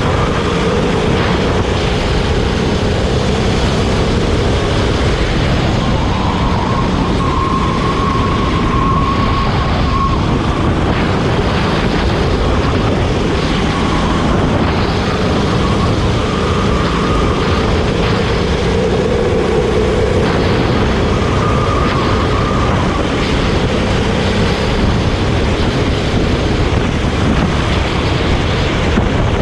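Go-kart engine running at speed under a heavy wash of wind and road noise. Its tone drifts slowly up and down as the kart speeds up and slows.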